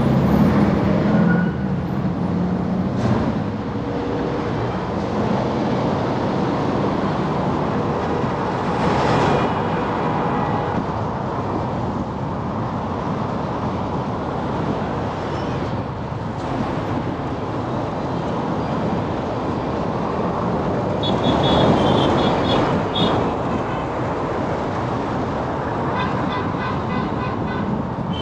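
Busy road traffic running steadily, a continuous rumble of engines and tyres on the road, with a few short high-pitched horn toots around the middle and near the end.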